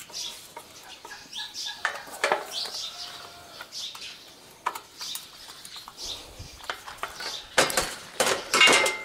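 Birds calling in short chirps, with a cluster of sharp knocks and clatters near the end.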